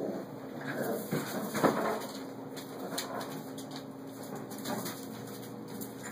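Four-week-old puppies playing: small high whimpers and grunts, with rustling and scuffling as they tumble on newspaper and towels.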